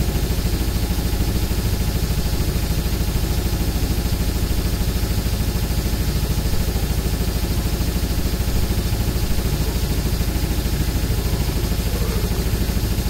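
Old school death metal: distorted guitar and bass over programmed drums, driven by a very fast, even kick-drum pulse.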